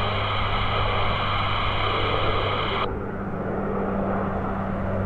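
Jet airliner engines running with a steady rumble and a high whine; the whine drops away suddenly about three seconds in, leaving the low hum.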